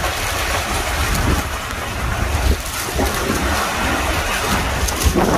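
Wind buffeting the microphone in uneven gusts over a steady rush of wind and sea.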